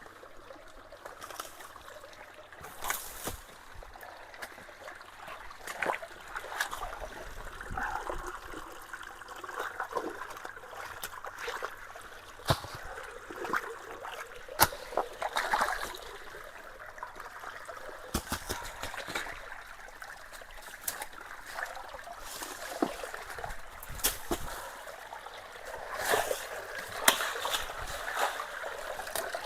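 Creek water trickling and splashing through a culvert partly blocked by sticks and leaves, with scattered sharp clicks and knocks throughout.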